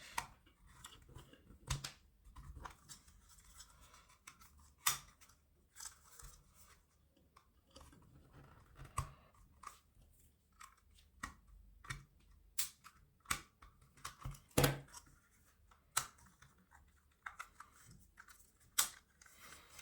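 Irregular light clicks and taps of a small plastic security camera's housing and internal parts being handled and pulled apart by hand, with quiet stretches in between.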